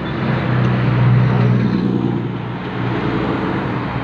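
Yamaha NMAX scooter's single-cylinder engine idling steadily.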